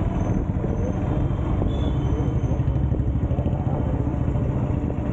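Steady low rumble of a motorcycle on the move, with wind buffeting the microphone.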